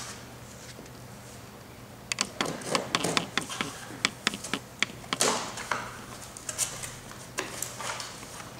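Small cardboard box being opened and its contents handled: an irregular run of sharp cardboard and paper crackles and clicks, starting about two seconds in, with a louder scrape about five seconds in.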